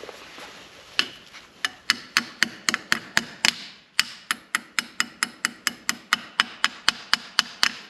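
Light hammer taps on an AR-15 lower receiver, driving in the fire-control hammer pin. The taps come in a quick, even series of about three to four a second, starting about a second in.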